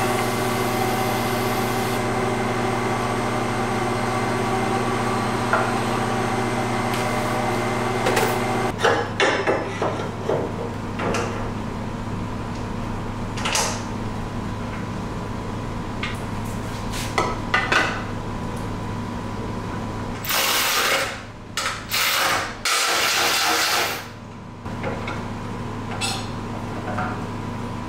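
Hand work on steel parts: scattered knocks and clanks as a welded mild-steel bar structure is unclamped and test-fitted to the car, over a steady hum. About three quarters of the way through come two loud bursts of a power tool.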